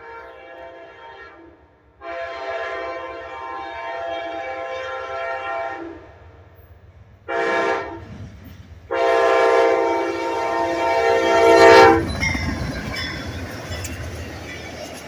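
Amtrak P42DC diesel locomotive's horn sounding the grade-crossing signal: the tail of one blast, a long blast, a short blast, then a final long blast that cuts off as the locomotive reaches the crossing. The train then rushes past with a rumble and the clickety-clack of wheels over rail joints.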